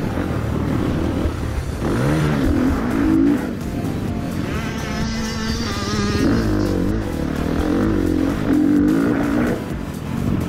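KTM 350 SX-F's four-stroke single-cylinder motocross engine revving up and down as the bike is ridden hard, easing off for a slow corner about halfway through and then accelerating out of it.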